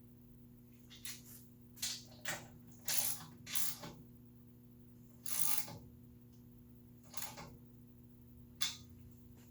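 Hand tools working metal hardware during table saw assembly: about eight short, separate clicking and scraping strokes spread unevenly, over a faint steady hum.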